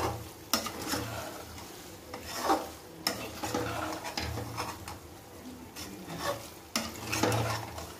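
Metal spoon stirring thick, creamy macaroni in a metal kadhai, with irregular scrapes and clinks of the spoon against the pan.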